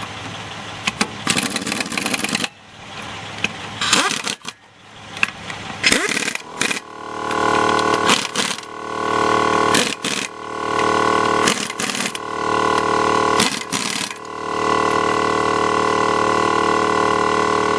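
Air impact wrench on a 12-volt DC compressor's air line, used to take a car wheel off. It is triggered in repeated runs, each spinning up to a steady pitch, with hissing, rattling bursts of air between them, and the longest run comes near the end.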